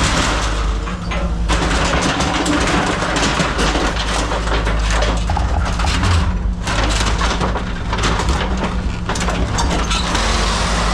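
Caterpillar 306 mini excavator's diesel engine running steadily under dense, irregular cracking and crunching of material being broken and scraped.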